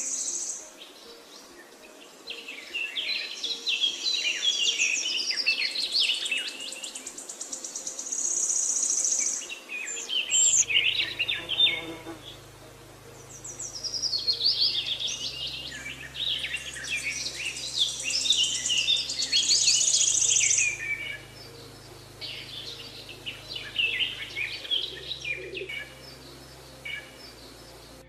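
Birdsong ambience: several birds chirping and trilling, with a high buzzy trill that comes and goes every few seconds. A faint low hum joins about a third of the way in.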